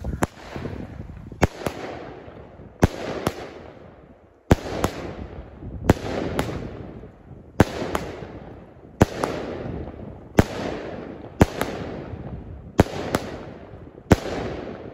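SKY CITY multi-shot firework battery firing: a sharp bang about every one and a half seconds, many of them doubled, each followed by a hiss and crackle that fades as the stars burn out. The last shot comes near the end.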